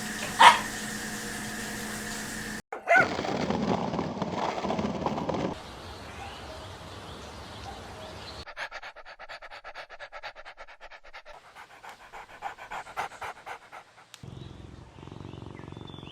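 Small puppy panting quickly in a steady rhythm, with a couple of short, sharp yaps earlier on.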